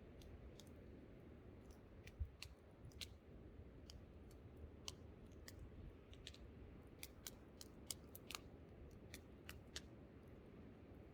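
Wood campfire crackling, with irregular sharp pops and snaps every fraction of a second to a second, over a steady low rumble of wind.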